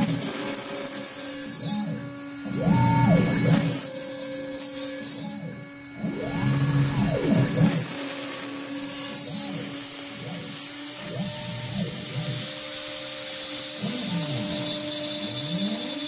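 CNC router spindle running at 17,000 RPM with a steady whine, while the router's stepper motors drive the head, their pitch sweeping up and down with each move. From about ten seconds in a steady hiss joins as the bit cuts into the polycarbonate sheet.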